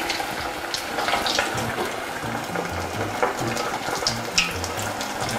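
Hot oil sizzling and crackling in a saucepan as a breaded chicken leg deep-fries, with sharp pops scattered all through. A background music bass line plays underneath.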